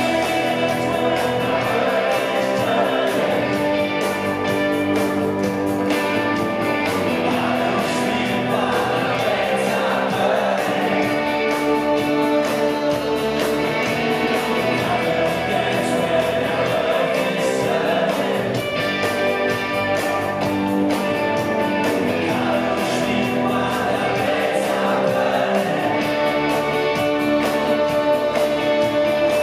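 Live rock band playing with singing: drums, electric bass and electric guitar under a sung melody.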